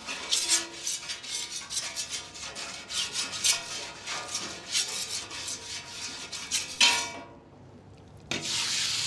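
Metal spatula scraping back and forth across a Traeger Flatrock griddle's flat steel top in quick repeated strokes, spreading cooking oil. About eight seconds in, a steady sizzle starts as the marinated fajita meat goes onto the hot griddle.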